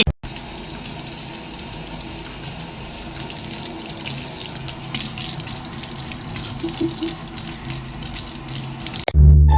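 Water running steadily, like a tap into a sink. Music starts suddenly near the end.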